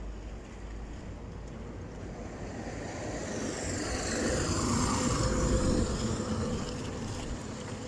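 A garbage truck drives past close by. Its engine and tyre noise swells to a peak about five seconds in, then fades as it moves away.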